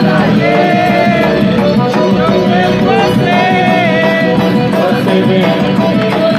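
Loud festa junina quadrilha music with a melody line.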